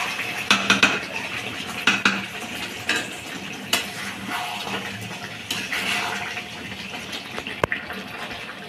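A metal spatula stirring and scraping chicken curry in a metal kadhai, knocking against the pan every second or so, over a steady sizzle from the cooking.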